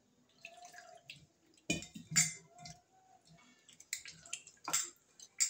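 Rasam simmering in an aluminium kadai on a gas burner, with scattered drip-like pops and clicks of bubbling liquid. The sharpest pops come about two seconds in and again near the end.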